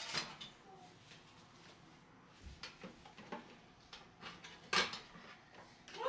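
Clinks and knocks of a wire dish-drying rack and plastic bottles being handled at a stainless steel kitchen sink: a few separate knocks, the loudest about five seconds in.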